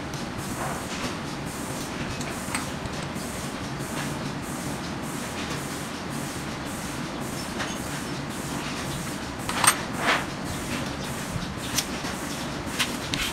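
Small metal clicks and clacks of an OnGuard padlock and its hardened steel shackle being handled, with two sharper clicks about ten seconds in. A steady background rumble runs underneath.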